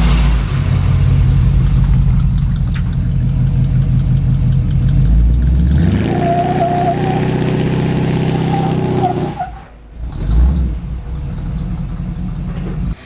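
Motor vehicle engine revving hard, stepping up in pitch about six seconds in with a high wavering squeal over it for a few seconds. It drops off briefly near ten seconds, then runs on.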